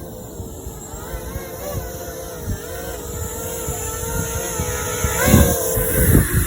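Racing drone's electric motors whining, the pitch wavering up and down with throttle and the sound growing louder, with a quick upward swoop and a louder burst about five seconds in. A low rumble of wind runs under it.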